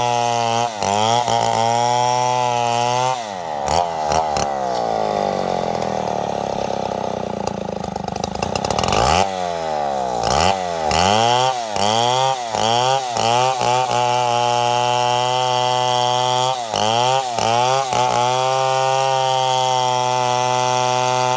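Gas chainsaw cutting into a big mahogany log, its engine pitch sagging as the chain bogs down under load and climbing back up again and again. It drags down deeply for several seconds from about three seconds in, then revs back up and carries on with shorter dips.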